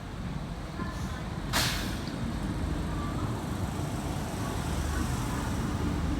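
Train with a short, sharp hiss of air about one and a half seconds in, over a steady low rumble that grows slightly louder.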